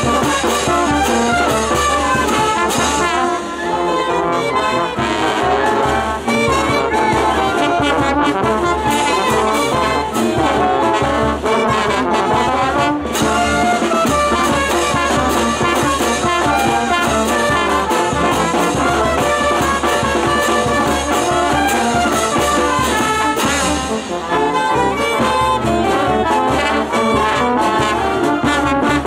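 Brass band music playing without a break.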